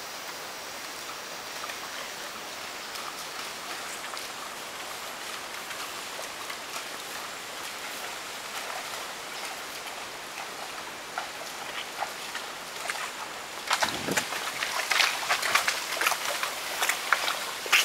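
A steady outdoor hiss, then from about fourteen seconds in a horse's hooves splashing through shallow water, a quick run of loud, sharp splashes.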